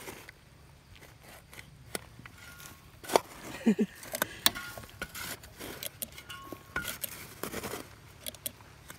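Scattered light metallic clinks and knocks, like metal tools or objects being handled and striking one another, with a short low wavering sound about four seconds in.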